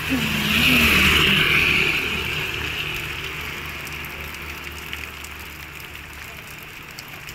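A motor scooter passes close on a wet road: its engine and tyre hiss swell about a second in, then fade away under steady rain hiss.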